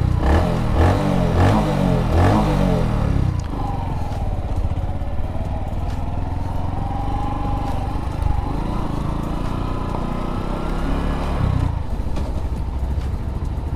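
Bajaj Platina H Gear's 115 cc air-cooled single-cylinder twin-valve DTS-i engine being ridden. It rises in pitch several times in quick succession over the first two seconds or so as the bike pulls away through the gears, then runs steadily at low speed with a slowly wavering note, changing again near the end.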